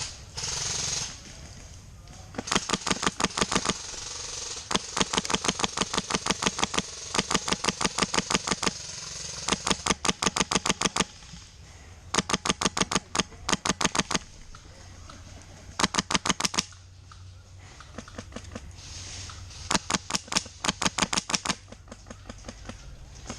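Airsoft gun firing full-auto, a rapid string of sharp cracks at roughly fifteen to twenty shots a second. It comes in about seven bursts, from under a second to about two seconds long.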